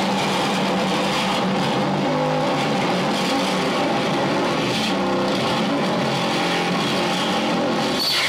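Live harsh noise music played through a Crate amplifier: a loud, dense wall of distorted noise over several steady droning tones, which shifts abruptly near the end.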